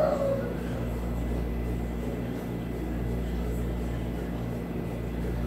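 Steady low mechanical hum, with a brief mid-pitched sound right at the start.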